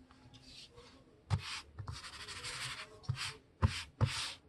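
A sheet of printer paper being handled and folded by hand: rustling and sliding, with a few sharp taps as creases are pressed.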